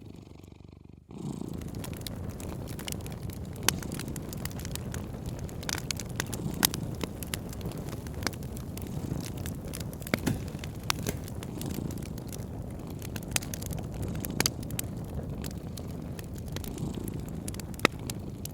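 A cat purring close up, a low continuous rumble that swells and eases with each breath. It sets in about a second in, over a wood fire crackling with scattered sharp pops.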